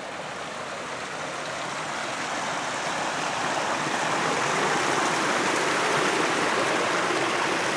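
A small mountain stream flowing over rocks: a steady rushing that grows louder over the first few seconds, then holds.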